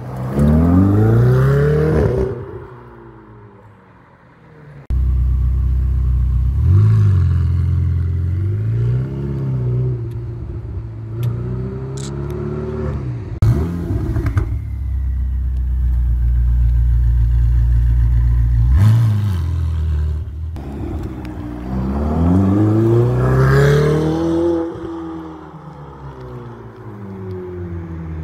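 Ferrari 488's twin-turbo V8 accelerating hard, its pitch rising. After a cut, the engine idles steadily with a deep low note and is blipped several times in short revs. Near the end, another hard acceleration climbs in pitch and then drops away.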